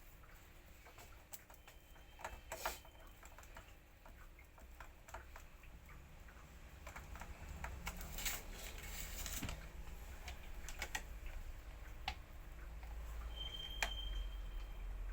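Scattered light clicks and taps at an irregular pace, with a short hiss about eight seconds in and a brief high tone near the end.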